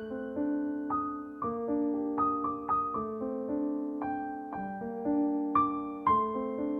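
Solo piano music: a slow, gentle piece with soft notes struck about every half second and left to ring.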